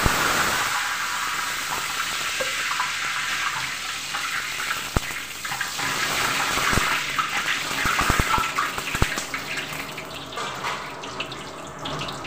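Hot oil sizzling in a large aluminium wok, a steady loud hiss. A metal ladle stirs and knocks against the pan several times in the second half.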